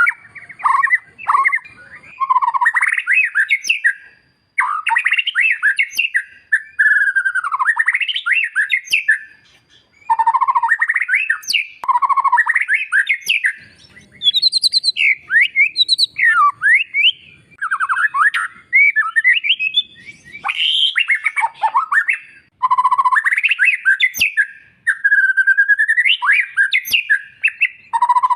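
White-rumped shama singing in full voice: a fast, varied run of rising and falling whistles and trills, broken by a couple of short pauses.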